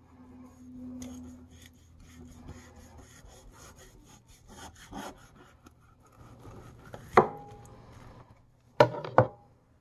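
Chef's knife sawing through the crusted bark of a smoked pork sirloin roast, a faint crackly scraping, then knocks as the blade meets the cutting board: one at about seven seconds and two more close together near the end.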